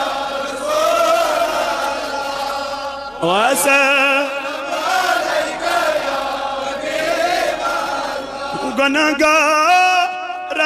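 Male chanting of a Kashmiri naat (devotional song in praise of the Prophet) in long, wavering held notes. It slides up into a new phrase about three seconds in and turns to a more ornamented line near the end.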